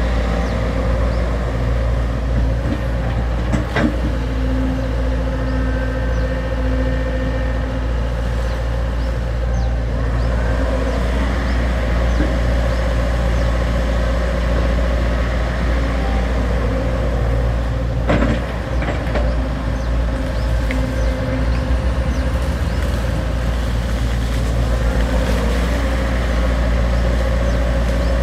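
XCMG XE75G excavator's diesel engine running steadily while it digs, with a higher steady tone coming in for a few seconds at times. Two sharp knocks stand out, one about four seconds in and one past the halfway mark.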